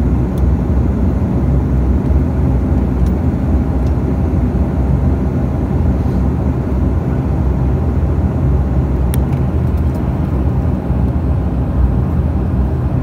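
Bombardier DHC8-Q400's twin turboprop engines and propellers heard from inside the cabin while taxiing after landing: a steady low drone.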